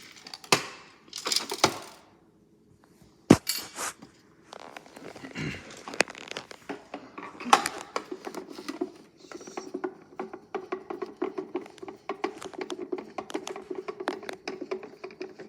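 A screwdriver clicking and scraping against a plastic toy washing machine as its screws are taken out, with small rattles and one sharp click; from about four seconds in a quick run of small clicks continues over a steady low hum.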